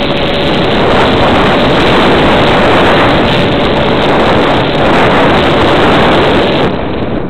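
Loud, steady wind rush over the microphone of a camera carried in flight, with a faint steady tone underneath; the rush eases slightly near the end.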